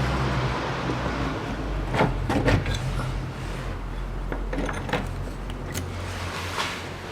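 A few sharp metallic clinks and knocks of tools and fasteners being handled while the gear-shift lever support is bolted back under a car, over a steady low hum.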